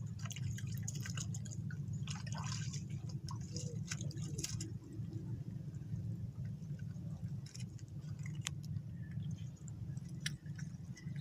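Sandalled footsteps splashing through shallow tide-pool water over rock, with drips and small sharp clicks and knocks of stones, busiest in the first few seconds, over a steady low rumble.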